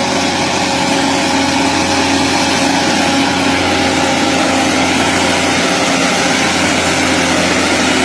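Diesel engine of a loaded log truck running at a steady pitch under load, with a constant hiss over it.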